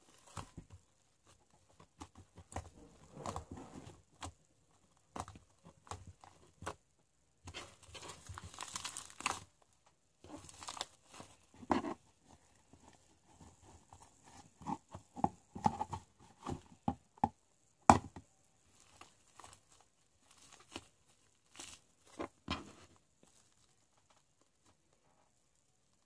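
Hands kneading and stretching sticky white shaving-foam slime and scraping it off the sides of a plastic tub, giving irregular crackles and clicks. One sharp click about 18 seconds in is the loudest, and the handling stops about three seconds before the end.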